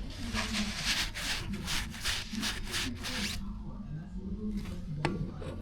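Quick, even back-and-forth rubbing or scraping strokes, about three a second, that stop a little over three seconds in. A faint low hum runs underneath, and there is a single click near the end.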